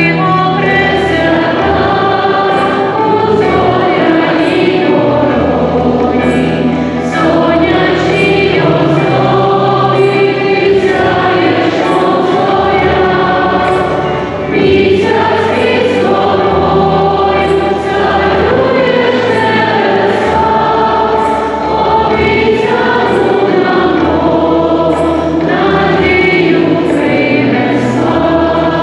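Choir singing a church hymn, with held low accompanying notes beneath the voices.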